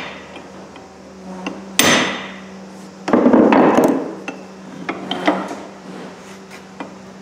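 A hammer strikes a flat chisel bit set in a hatchet head's eye, driving out the old wooden handle: one sharp metal clank with ringing about two seconds in. About a second of scuffing follows, then a few light knocks, over a steady low hum.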